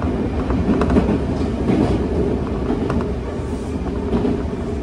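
Commuter train running at speed, heard from inside the passenger car: a steady rumble of wheels on rail with occasional faint clicks from the wheels.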